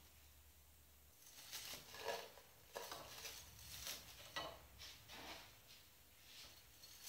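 Glass shards being pressed by hand into a nest of wiry black shavings among metal tubes: a faint series of short rustling, crackling scrapes with light clinks. It starts about a second and a half in and trails off near the end.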